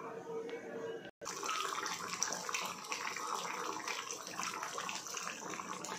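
Chicken curry boiling in its thin gravy in a kadai: a steady crackly bubbling and sizzling that starts after a short break about a second in.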